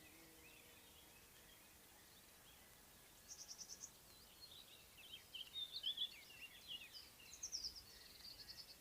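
Faint songbird song: a short rapid trill, then a burst of quick twittering notes, and another trill near the end.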